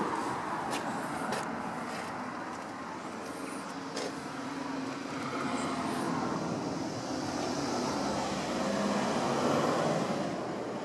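Background road traffic noise swelling and fading, with a few sharp clicks in the first few seconds.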